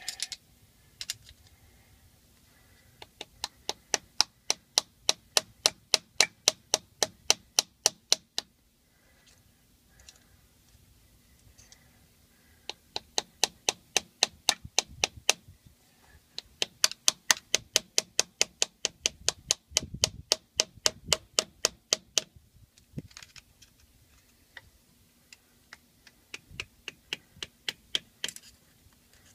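Runs of sharp metal taps, about three or four a second, with short pauses between: a hammer driving an old screwdriver, used as a chisel, against the PTO oil seal of a John Deere 6400 tractor to work the old seal out.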